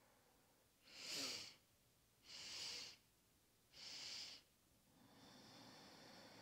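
Three short, soft in-breaths about a second and a half apart (the 'sip, sip, sip' of a yoga breathing exercise), followed about five seconds in by a fainter, longer breath out.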